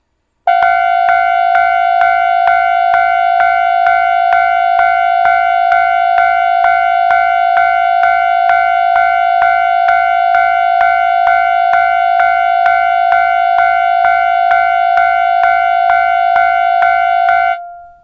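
Japanese railway level-crossing warning sound played through a station's horn loudspeaker as a platform warning: a steady electronic ding repeated about twice a second, starting half a second in and cutting off near the end with a short ring-out.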